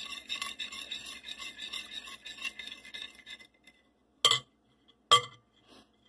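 A metal spoon beating eggs in a glass bowl: quick scraping clinks against the glass that stop after about three and a half seconds. Then come two sharp knocks of the spoon on the bowl, about a second apart.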